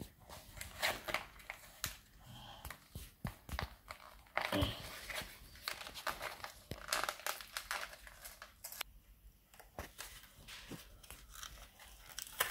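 White paper wrapper of a Pokémon card multi-pack being picked at and torn open by hand: irregular short rips and crinkles, with a brief lull about nine seconds in.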